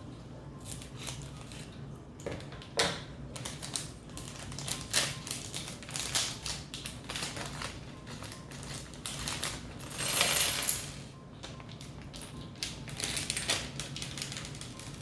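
Plastic Lego packs being opened: crinkling plastic and many small Lego pieces clicking and clattering together, with a longer rush of crinkling about ten seconds in.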